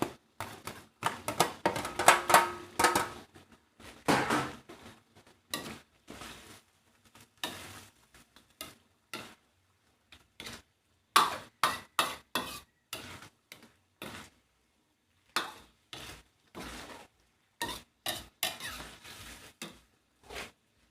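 Cooking utensils knocking and scraping against a pot, in irregular clinks and clatters, a few of them ringing briefly.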